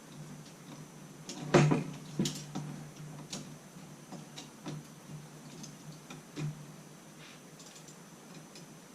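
Irregular clicks and knocks from an antique Corona typewriter being handled, its loose metal parts rattling, with the loudest knock about a second and a half in. A faint steady low hum sits under it.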